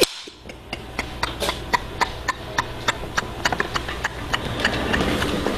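Steady ticking clicks, about four a second, over a low steady hum.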